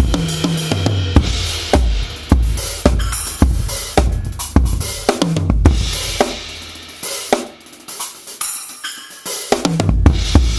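Drum kit played in a groove with Meinl Byzance cymbals, recorded through a Yamaha EAD10 drum microphone: kick, snare and cymbal hits. Past the middle the kick drops out for a couple of seconds, leaving cymbals and lighter strokes, then the full kit comes back in near the end.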